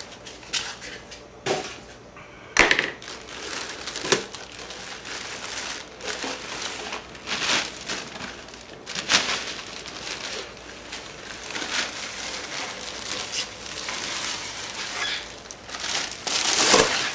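Packaging being snapped apart and pulled off by hand, a run of irregular crackling and crinkling broken by a few sharp snaps, the loudest about two and a half seconds in and another near the end.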